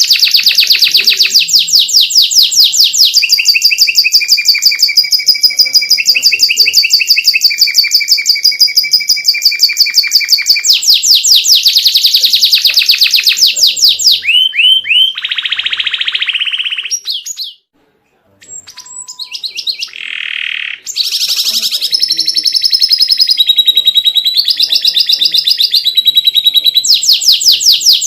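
Domestic canary singing a loud, continuous song of fast trills and rolls, changing from one rapid trill to the next. The song cuts out for under a second a little past halfway, then carries on.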